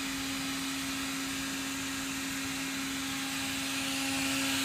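Stick vacuum cleaner running steadily: a hum at one pitch over a hiss of air, getting a little louder near the end.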